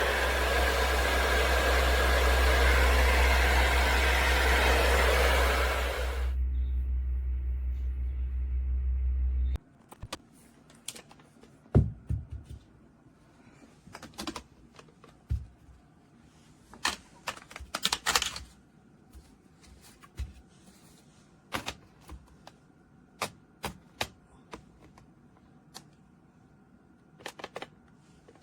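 Conair Infiniti Pro hair dryer running with a steady rush of air over a low hum. About six seconds in the airflow drops away, the hum carries on, and about ten seconds in it switches off. After that come scattered light clicks and taps from handling.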